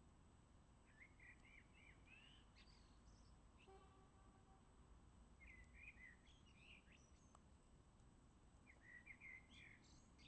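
Faint songbird singing in short, quick chirping phrases, three bouts spaced a few seconds apart, over a quiet outdoor background.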